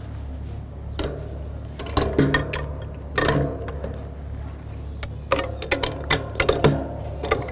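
Clicks and knocks of metal parts as a satellite terminal's interface module is keyed into its tripod bracket and its wing nuts are handled. The knocks come singly at first, then more quickly near the end, over a steady low hum.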